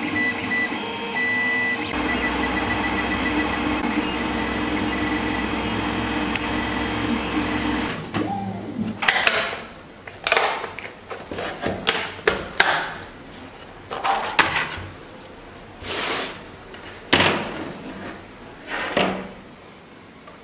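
Creality Ender 3D printer running a print, a steady mechanical hum with thin stepper-motor whines. About eight seconds in it stops, and about ten separate clacks and scrapes follow as the flexible build plate and the printed plastic track pieces are handled on a wooden table.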